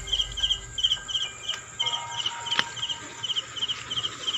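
A cricket chirping in short, rapid pulsed chirps, about two to three a second, over a steady high insect drone. There is a light knock about halfway through.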